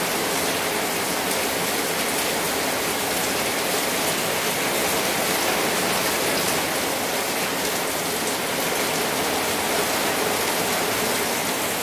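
Heavy rain falling steadily, splashing on a concrete rooftop and streaming off the edge of an awning overhead.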